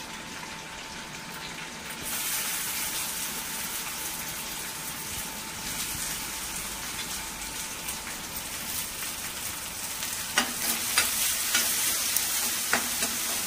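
Chopped onion frying in hot oil in a steel kadhai, a steady sizzle that grows louder about two seconds in. From about ten seconds in, a steel ladle stirs it, scraping and knocking against the pan.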